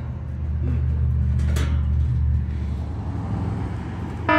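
A motor vehicle's engine running with a steady low rumble, swelling slightly for a second or so. A short sharp knock comes about one and a half seconds in.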